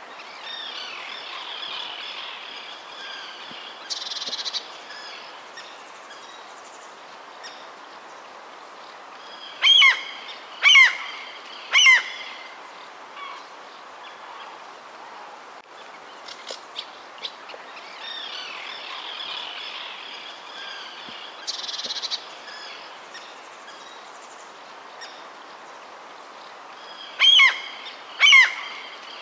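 Several wild birds chirping and calling over a steady soft hiss. A set of three loud, downward-sliding calls about a second apart comes about ten seconds in and again near the end.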